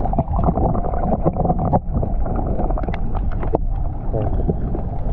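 Water noise heard through an action camera's housing held under the water: muffled, with the high end cut off, full of small clicks and knocks as water moves around the camera.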